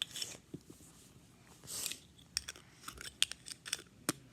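Scattered small clicks and taps with short spells of rustling: small plastic fidget toys being handled. The sharpest click comes a little after four seconds.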